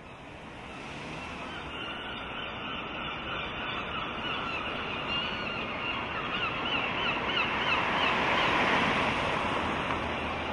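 City street ambience: a steady wash of traffic noise that fades in and swells as a vehicle passes close near the end. From about five seconds in, gulls call in a quick run of wavering notes, roughly three a second, for about three seconds.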